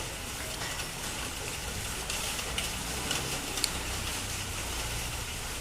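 Steady low background rumble with a few faint, sharp clicks of metal parts being handled, about once every half second in the middle of the stretch.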